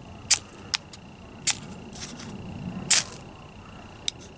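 A knife blade struck down a ferrocerium fire-starter rod five times in quick, short scrapes, throwing sparks; the loudest strike comes about three seconds in.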